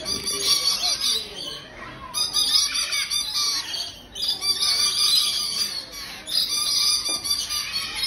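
A flock of lorikeets chattering and screeching: many overlapping shrill, high-pitched calls that ease off briefly about two, four and six seconds in.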